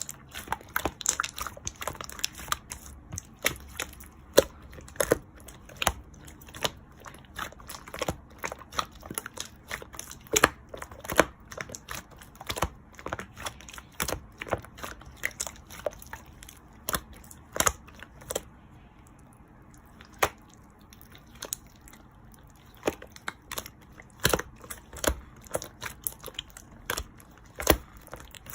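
Close, irregular crinkling and crackling clicks of something being handled by hand, in quick clusters with a short lull about two-thirds of the way through.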